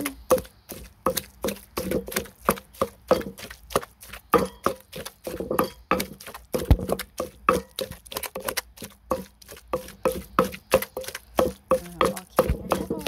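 Wooden pestle pounding boiled jackfruit and mackerel in a mortar, a steady run of soft, wet thuds at about three strokes a second.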